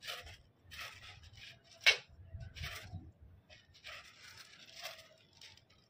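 Short rasping, rustling strokes of a paper fighter kite and its line as the kite is launched and tugged up into the air, with one sharp click about two seconds in.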